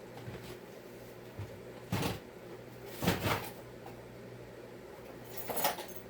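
Chainsaw parts being handled on a workbench: a few short knocks and clunks about two and three seconds in, then a brief light rattle near the end, over a faint steady hum.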